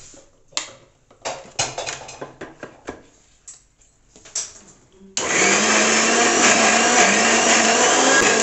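Clicks and knocks from a wall switch and a steel jar being set on a Lifelong mixer grinder. About five seconds in the grinder starts with a sudden loud steady whirr, wet-grinding cooled gravy paste with milk.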